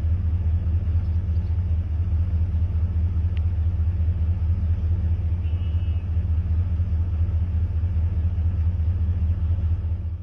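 Steady, loud low rumble with a faint hiss above it, cutting off abruptly at the very end.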